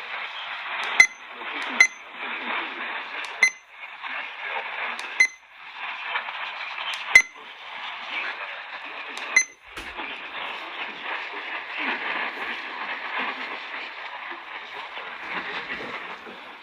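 Radio receiver static: a steady hiss, cut off above about 4 kHz, with six sharp clicks or pops over the first ten seconds.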